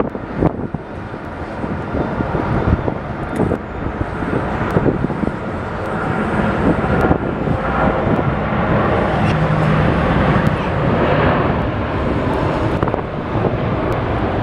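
Jet airliner engine noise, a steady dense rumble with faint low hum tones in the middle, mixed with wind buffeting the microphone.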